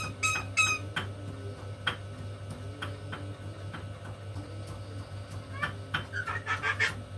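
Pet starling (jalak) calling: three quick, high whistled notes at the start, scattered sharp clicks through the middle, then a run of rapid chirps near the end, over a steady low hum.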